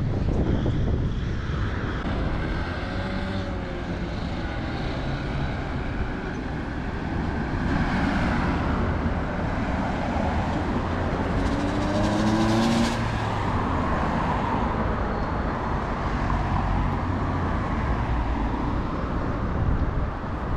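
City street traffic noise: vehicles running past with a steady low rumble, swelling briefly about twelve seconds in.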